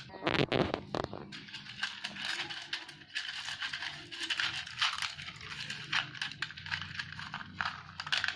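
Small gravel stones clicking and rattling as they are picked from a small plastic cup and dropped into a plastic bottle, with crinkling of the plastic as it is handled. A few louder knocks come in the first second.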